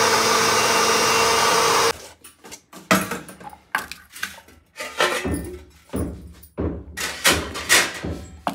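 A steady whirring, like a small kitchen appliance motor, cuts off about two seconds in. It is followed by a run of irregular knocks and clatters of kitchen utensils.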